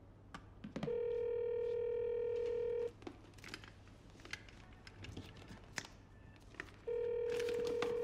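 Telephone ringback tone of an outgoing call not yet answered: a steady mid-pitched beep held about two seconds, sounding twice with about four seconds of gap between. Faint clicks and rustles fall in the gap.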